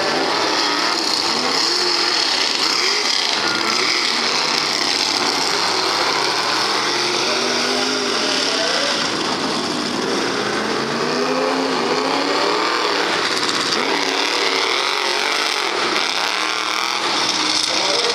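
Mega truck engines revving on the mud-bog course, their pitch rising and falling over a constant high hiss.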